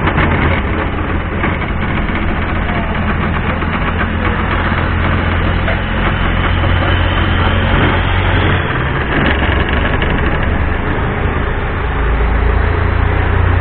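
Engine of a narrow wooden canal boat running steadily as the boat cruises, a loud low drone that eases a little about nine seconds in and grows louder again near the end.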